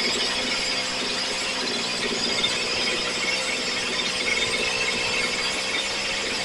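Stihl FS 76 string trimmer's two-stroke engine running steadily at a constant speed, now running again after its fuel line, fuel filter and grommet were replaced.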